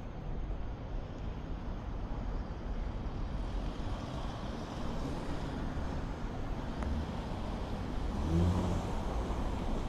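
Road traffic: a car passing, its noise growing from about halfway through, with a short rising engine note near the end.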